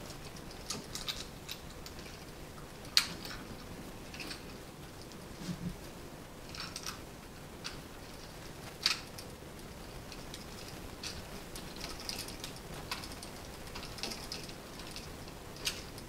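Scattered small clicks and taps, with sharper clicks about three seconds and about nine seconds in: a bare copper ground wire and a smart light switch being handled at an electrical box as the wire is attached to the switch's ground screw.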